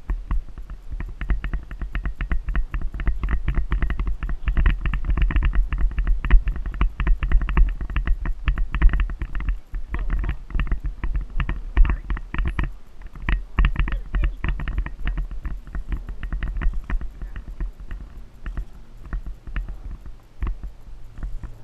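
Icelandic horse moving fast on a sandy trail, heard from the rider's head-mounted camera: a rapid, irregular run of hoofbeats and jolting knocks, over a steady low wind rumble on the microphone.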